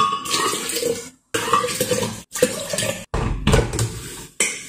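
Water poured from a glass bottle into a glass blender jug over dry oats, splashing, with clinks of glass. The sound breaks off in several short gaps, and there is a low thump about three seconds in.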